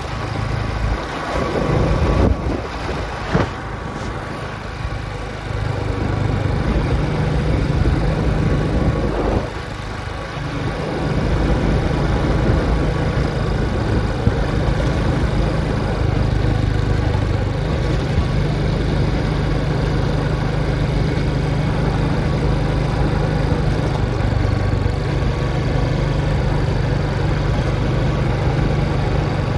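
Motorcycle engine running on a ride, uneven for the first ten seconds or so, then holding steady.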